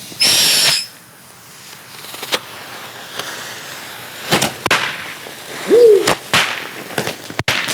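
Small novelty firework tanks going off: a loud hissing whoosh with a high whistle just after the start, then a scatter of sharp pops and cracks, the loudest about 6 seconds in.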